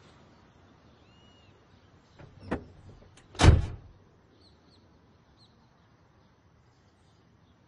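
A vehicle door clacks sharply about two and a half seconds in, then shuts with a loud, heavy thump a second later. Faint bird chirps sound before and after.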